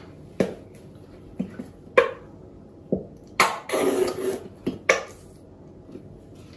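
Mayonnaise squirted from a plastic squeeze bottle into a glass bowl: a spluttering squirt of about a second just past the middle, among several light clicks and knocks from the bottle's flip cap and the bowl.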